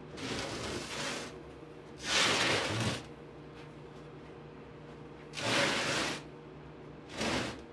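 Heavy forge body of aerated concrete blocks in a steel frame being slid and turned by hand on a wooden board: four scraping shuffles, the loudest about two seconds in, over a faint steady hum.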